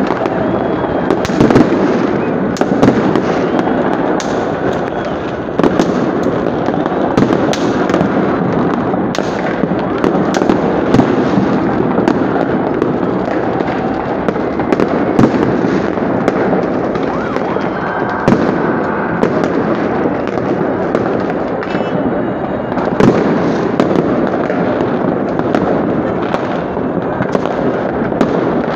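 Fireworks salute shells bursting in a dense, continuous barrage: overlapping bangs and crackles with frequent sharper reports.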